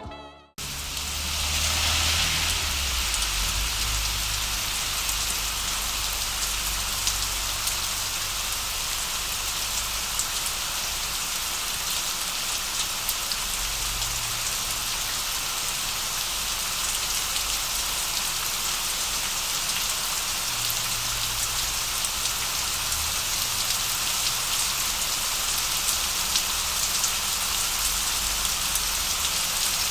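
Steady rain falling, an even hiss with scattered drop ticks, and a low rumble that comes and goes underneath.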